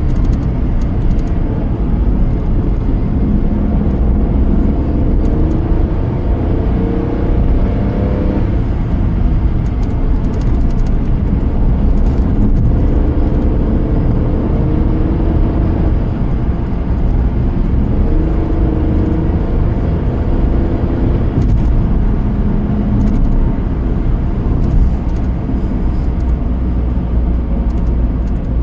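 Car driving on the road: steady low engine and road rumble, with the engine note rising and falling several times as the car speeds up and slows down.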